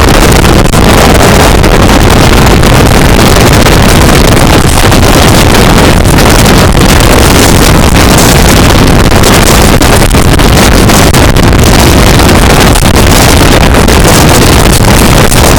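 Millat Express passenger train passing at high speed close by: a loud, unbroken rush of wheels on the rails, with wind buffeting the microphone.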